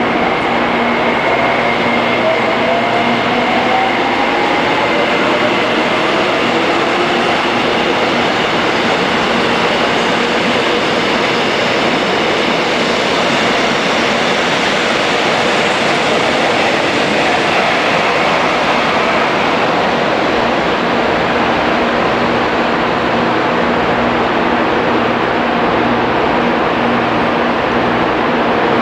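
Seoul subway electric trains running past station platforms: a steady rumble of steel wheels on rail, with the traction motors' whine rising in pitch during the first few seconds as a train gathers speed.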